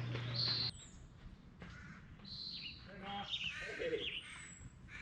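A steady low hum with faint footfalls cuts off abruptly under a second in. Then birds call: a few short chirps and gliding whistles, scattered through the rest.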